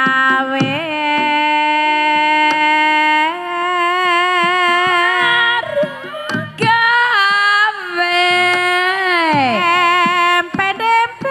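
Banyumasan gamelan gending with a female sinden singing long held notes that waver and slide between pitches, ending in a long downward glide near the end. Short percussive strikes from the accompaniment dot the singing.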